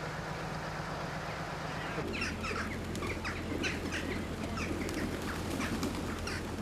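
A steady low hum under a noisy background, then, about two seconds in, an abrupt change to a flock of birds calling: many short, overlapping chirps and calls over a low hum.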